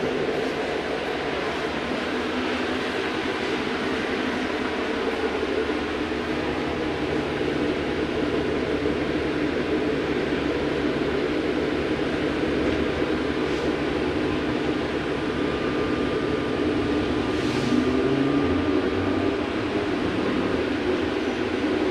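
Cabin noise of a VMZ-5298-20 trolleybus under way: a steady running noise heard from inside the passenger saloon, with a thin steady tone joining about halfway through.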